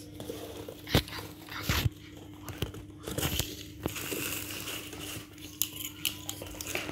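Handling noise from a plastic toy RC car and its packaging: a few sharp knocks and clacks with rustling and crinkling of plastic wrapping in between, over a faint steady hum.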